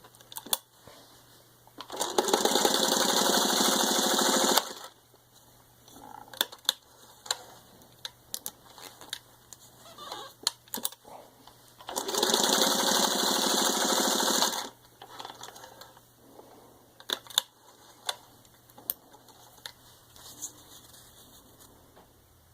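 Vintage 1953 Singer 301A sewing machine running at speed, stitching through four layers of vinyl upholstery. It runs twice, each time for about two and a half seconds, with clicks and handling noises in between.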